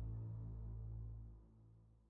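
Ambient background music fading out: low held notes die away, dropping off more steeply about one and a half seconds in.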